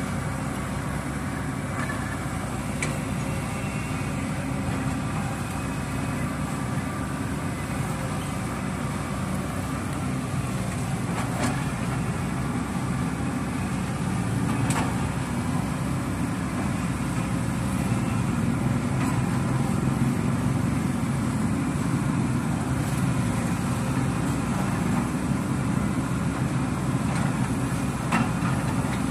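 Excavator's diesel engine running steadily at a construction site, with a few brief sharp knocks over it.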